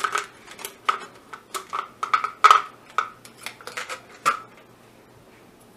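Wooden craft sticks rattling and clicking inside a plastic cup as it is shaken, for about four seconds, then stopping.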